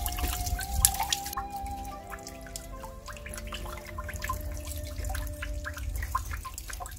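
Water dripping and splashing in irregular small drops as peeled cassava roots are rinsed by hand. Soft background music with long held notes plays underneath.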